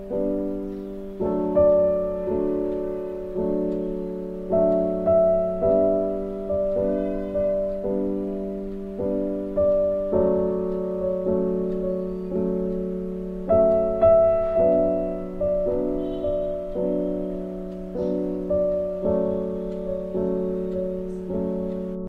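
Background piano music: single notes and chords struck about once a second, each starting sharply and fading away.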